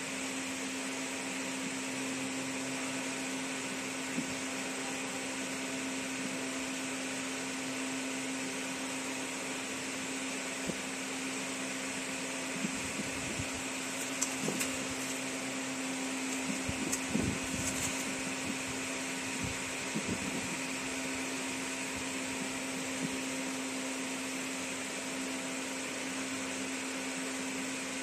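Fiber laser marking machine running with a steady fan whir and an even hum. A few light clicks and knocks come about halfway through, as the plastic security seals are moved on the jig.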